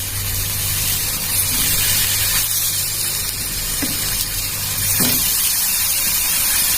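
Pineapple pieces sizzling on a hot tawa, a steady hiss, with a few soft knocks as pieces are set down.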